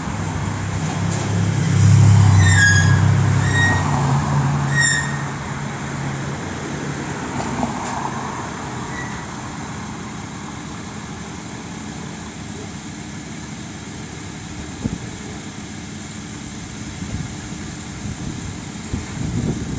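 Pickup truck engine running as the truck creeps up onto a flatbed trailer. It is loudest over the first few seconds, then settles to a steady low hum. A few short high chirps sound about three to five seconds in.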